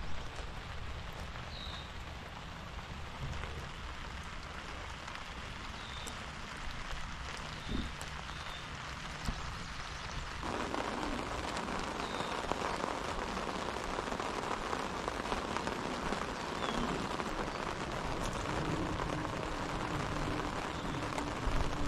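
Steady rain falling, becoming louder about halfway through.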